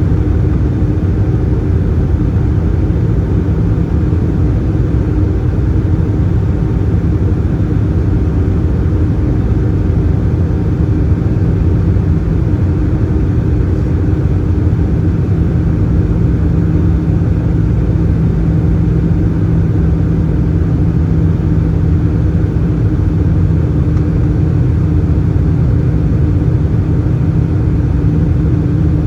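Steady in-flight cabin noise of an Airbus A320-214, heard from a window seat by the wing. Its CFM56 engines give a constant drone with a few low humming tones, under a rush of airflow, and nothing changes in pitch or level.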